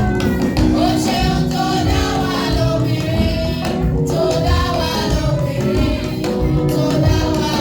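Live gospel music: a choir singing over drums and other percussion at a steady beat.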